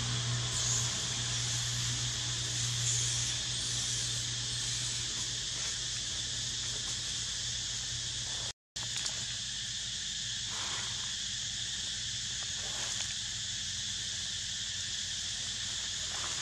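Steady high-pitched drone of forest insects, with a low steady hum under it in the first half. The sound drops out for an instant just past halfway, and a couple of faint short sounds follow.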